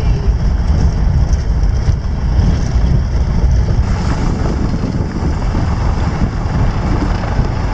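Car driving along a dirt road: a steady low rumble of tyres and engine, with wind rushing over the microphone at the open side window.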